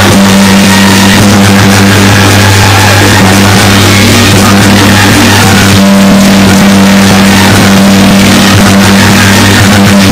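Loud, heavily distorted music with a steady low drone running under it.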